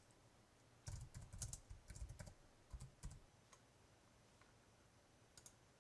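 Faint keystrokes on a computer keyboard: a quick run of typing, lasting about two seconds and starting about a second in.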